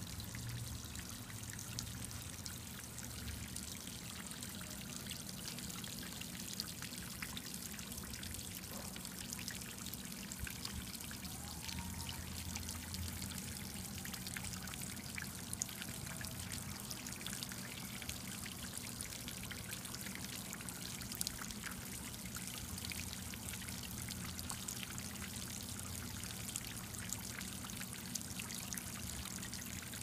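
Water from a watering-can fountain spout falling in thin streams into a shallow clear party tray: a steady trickling splash with fine droplet patter. A low steady hum runs beneath it.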